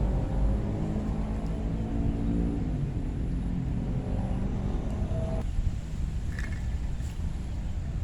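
A motor engine humming over a steady low rumble, its pitch dropping as it fades about three seconds in.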